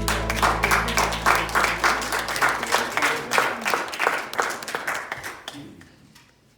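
Congregation applauding at the end of a song: dense clapping that thins out and dies away near the end, as the last low note of the backing music fades under it early on.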